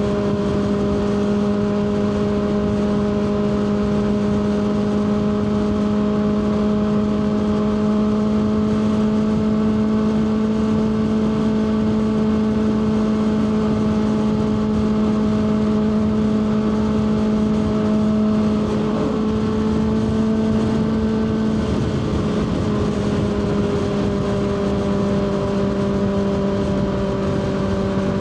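Kawasaki ZX-6R 636 inline-four engine running at a steady cruising rpm under way, over wind and road noise. About two-thirds of the way through the pitch wavers and settles slightly lower.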